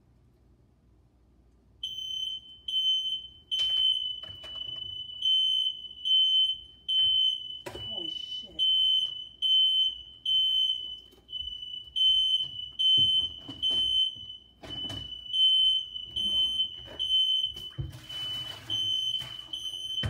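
Household smoke alarm going off, set off by cooking: a shrill beep at one high pitch that starts about two seconds in and repeats over and over without stopping. A few knocks and clatters sound under it.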